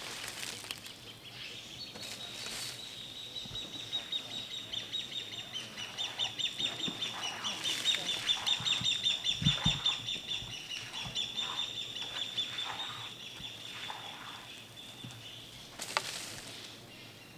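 A small wild animal's high, rapidly pulsing trill that goes on for over ten seconds, swelling in the middle and fading near the end. A single sharp click sounds near the end.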